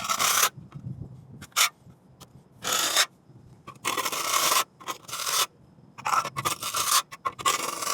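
Trowel blade scraping over wet quick-setting cement on a concrete curb, shaping and trimming the patch: a series of short scraping strokes with pauses between them.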